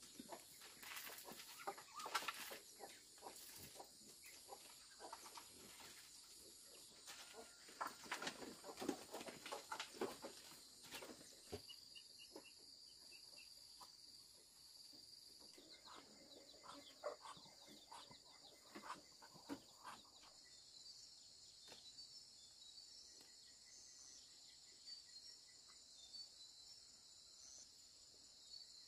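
Steady high-pitched chorus of crickets and other insects, with scattered taps and clicks in the first ten seconds or so and soft calls from Muscovy ducks a little past halfway.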